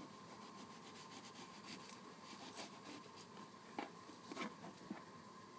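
Faint rubbing and scraping of a kitchen knife working the core out of a pear half, with a few light knocks on the wooden board near the end.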